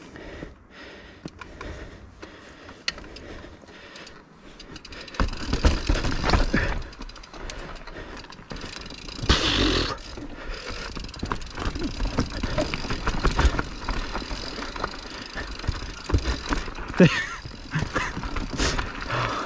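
Mountain bike riding over rough, technical trail: tyres over rocks and roots, with a steady run of sharp knocks and rattles from the bike, over a rumbling noise on the camera microphone that gets louder about five seconds in.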